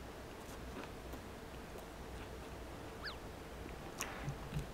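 Faint eating sounds over a low steady hum: small mouth clicks, a short falling bird chirp about three seconds in, then a sharp click as he bites into a fried egg roll about four seconds in, followed by soft chewing.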